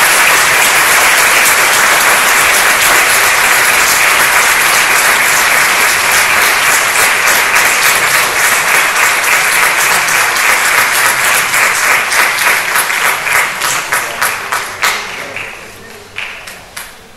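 Audience applauding: steady, dense applause that thins into separate claps about twelve seconds in and dies away near the end, with a few last scattered claps.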